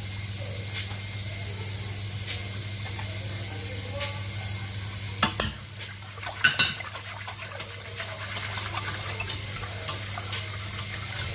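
Cold milk with cornstarch and sugar being stirred in a container to keep lumps from forming: a soft scraping with faint ticks of the utensil, and a few sharper clinks against the vessel about five and six and a half seconds in, over a steady low hum.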